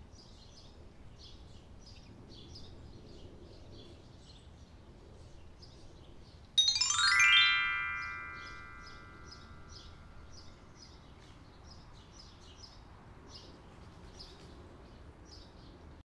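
A loud rising glissando of bell-like chime tones about six and a half seconds in, ringing on and fading over about two seconds: an intro sound effect. Faint, quick bird chirps repeat over a low background hiss.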